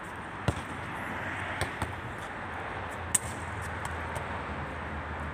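A football being kicked and striking a stone wall and paving: four sharp knocks, the loudest about three seconds in, over the steady noise of street traffic.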